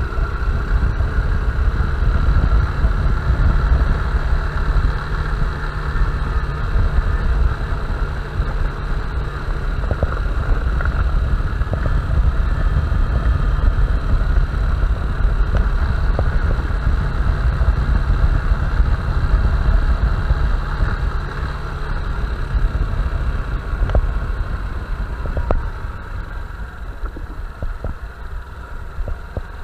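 Honda Bros 160 motorcycle's single-cylinder engine running steadily under way. Its steady note dies away about four seconds before the end as the rider eases off, and the sound gets quieter.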